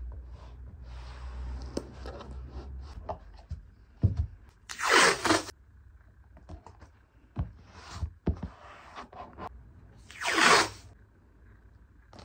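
Green masking tape being pulled off the roll in two loud ripping pulls of about half a second each, one about five seconds in and one near the end. Between them are quieter rubbing and taps as the tape is pressed down along a canvas edge.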